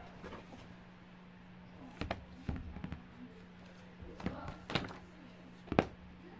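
Taps and knocks of a thick cardboard board book being handled and opened close to the microphone: a scatter of short knocks from about two seconds in, the loudest near the end.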